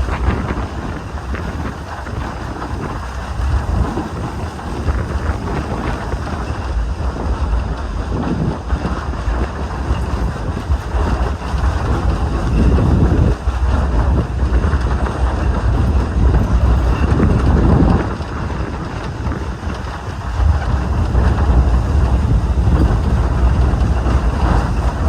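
Steady rumble of a standard-gauge steam train's wagon running along the track, with wind buffeting the microphone.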